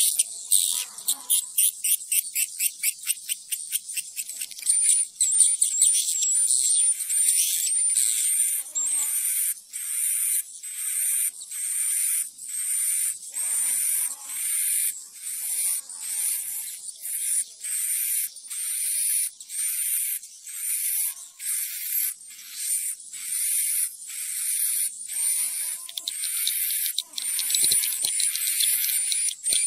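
Swiftlet calls as played to lure swiftlets into a nesting house to roost: a quick run of high, short chirps at first, then a chirp repeated about once a second, over a steady high chittering.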